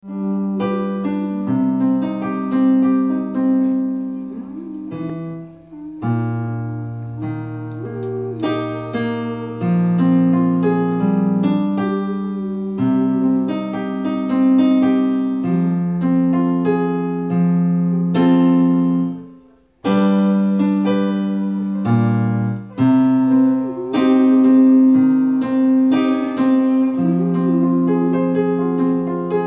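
Digital piano played with both hands: held chords over a bass line with a melody on top. The playing stops briefly about two-thirds of the way through, then starts again.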